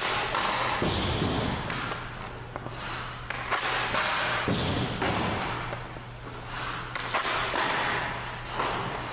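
Hockey puck shooting drill: several sharp cracks of stick on puck and puck on goalie pads, with skates scraping the ice between shots, over a steady low hum.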